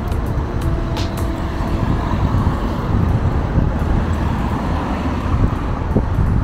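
Outdoor street ambience: a steady low rumble, with a short tone and a sharp click about a second in.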